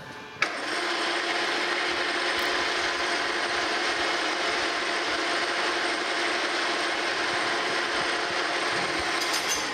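Metal lathe starting with a click about half a second in, then running steadily as a carbide insert tool takes a light 10-thousandths facing cut across the end of a turned metal stud.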